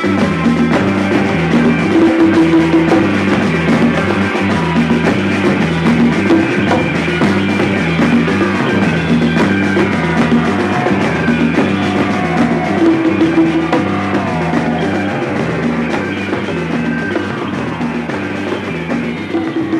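Instrumental rock music with a drum kit, a repeating bass line and electric guitar. A guitar slides up and down about halfway through.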